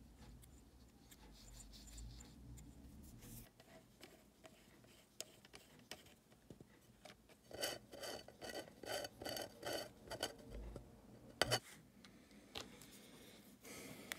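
Small screwdriver turning a screw into the metal chassis of a portable cassette player: a run of short squeaky scrapes, two or three a second, followed by a couple of sharp clicks, with faint handling clicks and rubbing around them.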